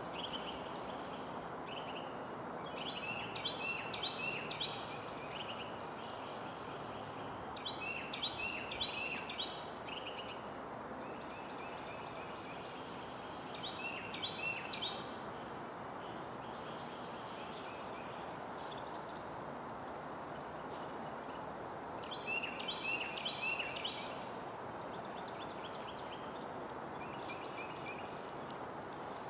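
Insects keeping up a steady high-pitched drone. A bird breaks in four times with a short run of four or five quick chirps, over a faint constant outdoor hiss.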